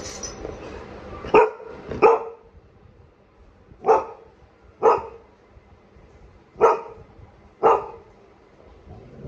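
A golden retriever barking six times, short sharp barks in three pairs about a second apart. The barking is the dog's excitement to be taken out for a walk.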